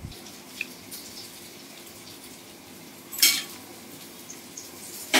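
Palette knife scraping and clicking lightly against the side of a sponge cake and a plastic cake turntable as the cake is scored into layers, with one short, loud scrape about three seconds in.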